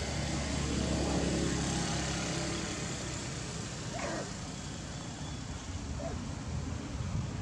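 A motor vehicle's engine hum against steady outdoor noise, loudest in the first couple of seconds and then fading. A brief chirp-like call sounds about four seconds in, with a fainter one near six seconds.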